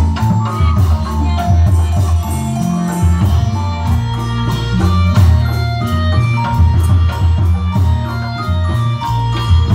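Loud accompaniment music for a Reog dance, with a steady percussive beat and a deep, moving bass line.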